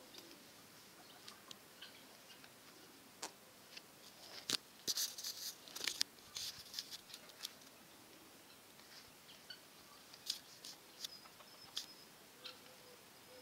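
Faint, irregular clicks and rustles of a handheld phone being carried about, thickest about four to six seconds in.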